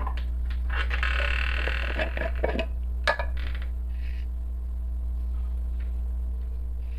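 A glass salt jar being handled and opened: a scraping rasp from about one to nearly three seconds in, then a sharp clink, with a few lighter taps after, over a steady low hum.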